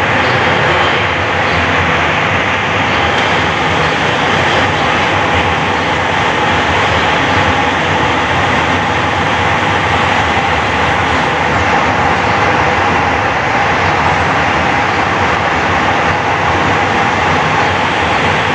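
Jabodebek LRT electric train running close by on the elevated track: a steady rolling rumble with a faint constant whine.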